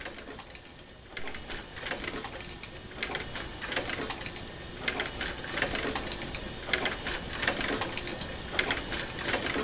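Motor-driven rocking chair rocking steadily: the electric motor and its aluminium push linkage running with a low hum under repeated clicks and knocks.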